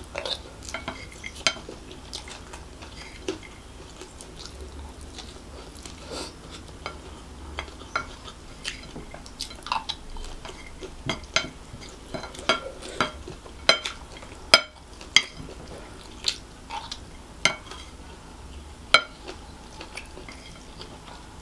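Wooden spoon scraping and clicking against a ceramic plate as fried rice is scooped up, with chewing between scoops. The clicks are sharp, short and irregular, coming every half second or so.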